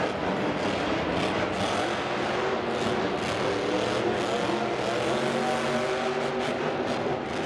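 Monster truck engine running and revving, its pitch rising and falling unevenly, over a steady wash of stadium noise.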